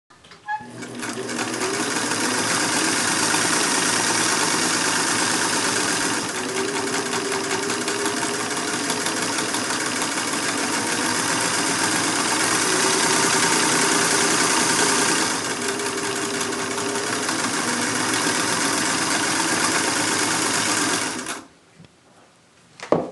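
Singer 192K Spartan, a 3/4-size straight-stitch sewing machine, running steadily and easing off a little twice before it stops near the end, followed by a couple of clicks.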